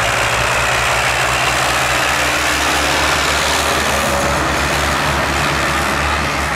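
Two Zetor diesel tractors driving flat out uphill side by side, their engines running loud and steady with a low, rapidly pulsing throb.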